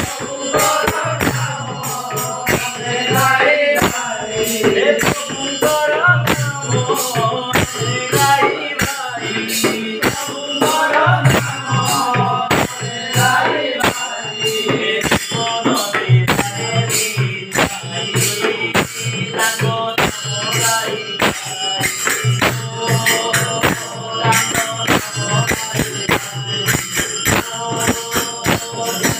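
Devotional namasankirtana: voices chanting the divine name to the steady ringing beat of small hand cymbals, with low drum strokes underneath.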